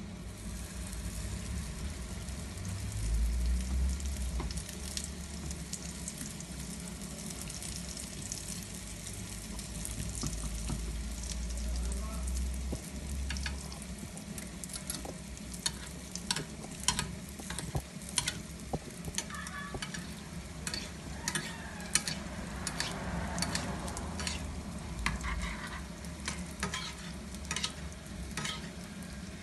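Sfenj dough ring sizzling in a shallow layer of hot oil in a small frying pan, the first fry that makes the dough puff. About halfway through, a spoon starts clicking and scraping against the pan again and again as oil is spooned over the dough.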